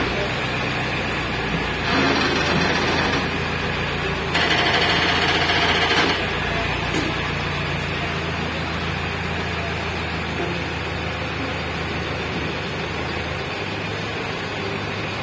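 Heavy vehicle engine running steadily with a low hum, with two louder rushing stretches about two and four seconds in.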